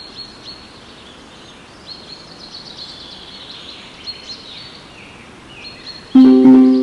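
Recorded forest ambience from an augmented-reality nature app: many birds chirping over a faint steady background hiss. About six seconds in, a sudden loud ringing tone with several pitches starts and fades out slowly.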